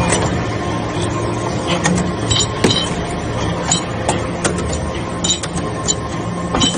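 Metal shavings baler running with a steady hum, while metal chips clink and tick irregularly.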